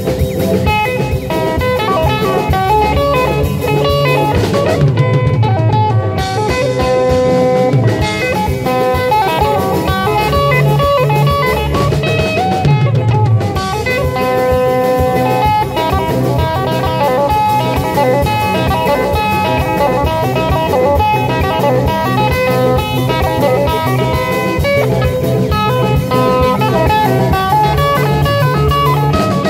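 Live band playing through amplifiers: electric guitars picking lines over a drum kit.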